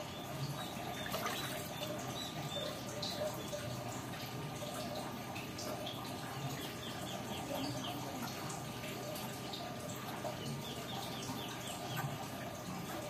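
Water trickling and dripping steadily, with many small drips and splashes.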